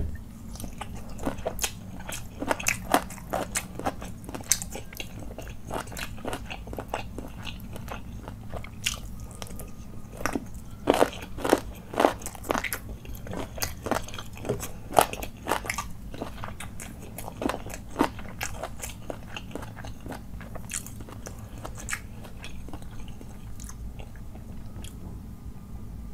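Close-miked eating sounds: a man chewing a mouthful of chicken curry and rice eaten by hand, with many short sharp clicks and crackles that are busiest about halfway through. A low steady hum lies underneath.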